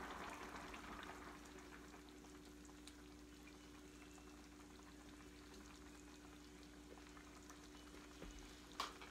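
Heavy cream poured from a measuring cup into boiling soup, a soft hiss that fades away after about a second. Then near silence with a faint steady low hum and a single click near the end.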